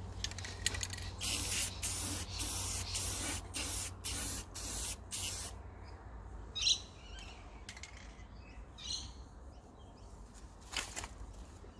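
A coating sprayed on in short hissing bursts, about seven in a row a little over half a second apart, followed by a few faint rattles and a sharp click near the end.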